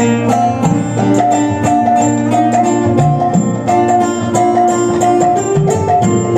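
Live Indian devotional music: tabla strokes keeping a steady rhythm under a Yamaha electronic keyboard's repeated melody line and a strummed acoustic guitar.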